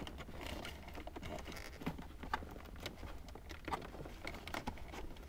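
Quiet, irregular small clicks and rubbing of a cable being pushed by hand through a gap in the plastic dashboard trim.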